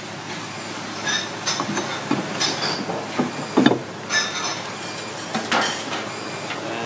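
Irregular knocks and clinks of a knife and hands working a large lobster on a wooden chopping block: shell knocking against wood and steel, with the loudest thump about halfway through. Near the end comes the metal rattle of the lobster being set into a perforated stainless-steel pan.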